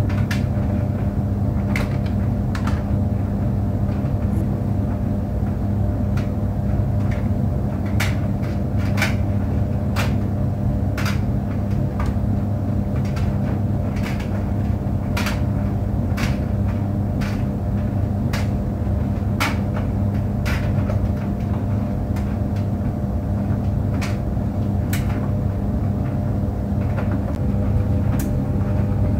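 Clothes dryer running: a steady low hum from the motor and turning drum, with irregular light clicks and knocks roughly once a second as the load tumbles.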